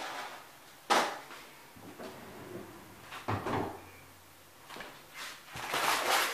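Two sharp kitchen knocks, about a second and three and a half seconds in, then a rustle of hands handling things near the end.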